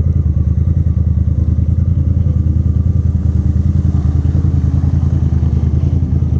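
Side-by-side UTV engine idling steadily with a low, even throb.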